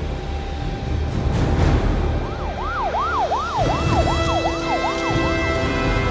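Emergency-vehicle siren yelping in fast rising-and-falling sweeps, about three a second, starting a little over two seconds in over a low rumble; steady held tones join it near the middle.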